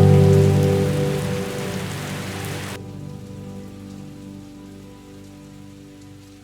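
Steady rain falling, which cuts off suddenly about three seconds in, over a low sustained music chord that slowly fades away.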